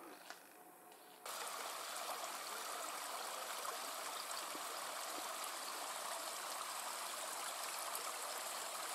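Steady rushing of flowing stream water, starting abruptly about a second in after a moment of near quiet.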